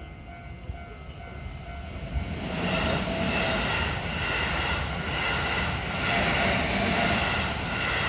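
Keihan 3000 series electric train passing over a level crossing. It comes in about two seconds in and stays loud to the end, over the repeating tones of the crossing's warning bell.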